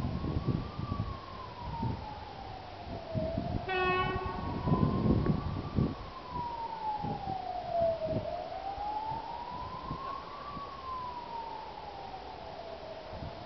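A siren wailing slowly up and down, each rise and fall taking about five seconds, over low wind gusts on the microphone. A short, sharp pitched call sounds once, about four seconds in.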